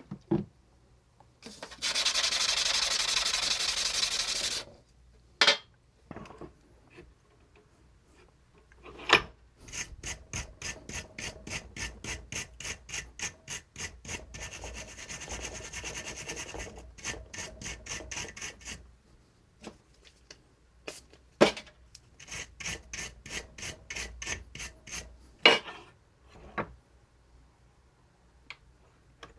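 Bicycle disc brake pad rubbed by hand on 220-grit sandpaper to strip rust and residue. First comes one long steady scrub, then two spells of quick back-and-forth strokes, about five a second, with a few sharp taps in between.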